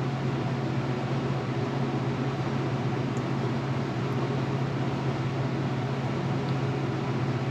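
Steady low machine hum under an even hiss, unchanging throughout.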